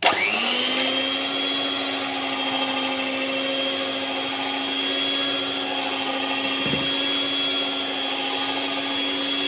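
Five-speed electric hand mixer switched on, its motor whining up to speed within a moment and then running steadily as the beaters whip eggs into creamed butter and sugar. A brief knock about two-thirds of the way through.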